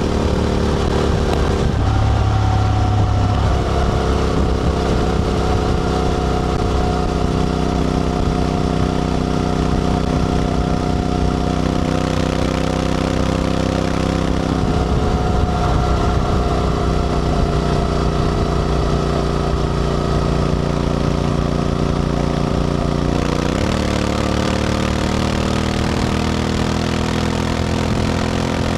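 Honda X-ADV 750's parallel-twin engine running through an SC-Project titanium slip-on exhaust while riding. The engine note drops about two seconds in and again around halfway, then rises briefly in a short rev later on.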